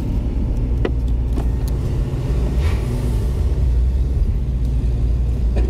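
A car driving slowly, heard from inside its cabin: a steady low rumble of engine and tyres, with a few faint clicks and a short swell of hiss about halfway through.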